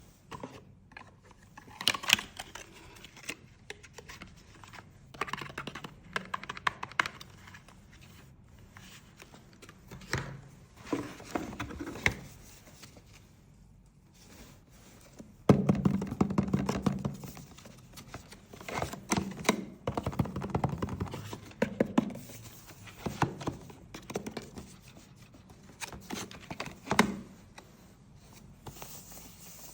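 Cosmetics packaging being handled: irregular taps and clicks of fingers and nails on boxes and product containers, with stretches of rustling and scratching. The loudest rustling starts suddenly about 15 seconds in and lasts a few seconds.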